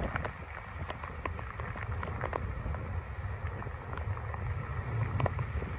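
Wind buffeting the microphone with rain falling, and scattered sharp ticks of raindrops striking.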